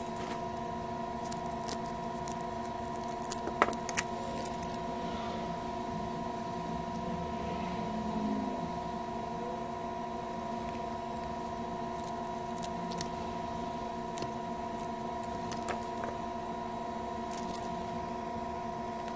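Scattered light clicks and taps of monitor parts being handled and fitted together during reassembly, over a steady hum made of several constant tones.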